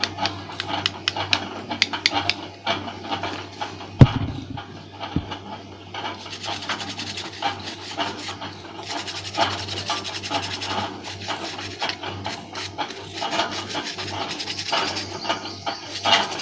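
Quick, scratchy rubbing strokes of cleaning on the opened phone's board around the SIM connector, with one sharp knock about four seconds in.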